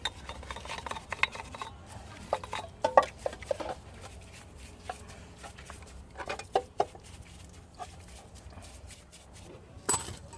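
Scattered light clicks and knocks of small metal starter-motor parts being handled and cleaned, with a sharper click near the end.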